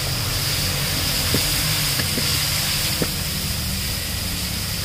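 Stir-fried vegetables sizzling in a hot metal wok just after soy sauce is poured in. A few light knocks of a wooden spatula against the pan are heard.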